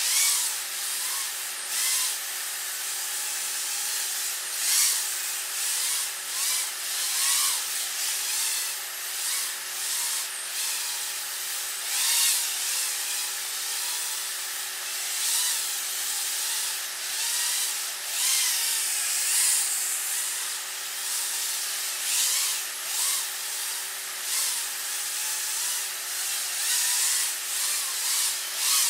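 HappyModel Moblite7 tiny whoop's brushless motors and ducted props buzzing in flight, the whine rising and falling with sharp throttle changes. Under it runs a faint steady hum.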